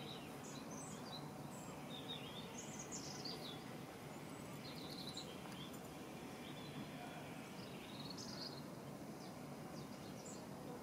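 Small birds chirping and singing in short, high calls scattered throughout, over a steady low outdoor background noise.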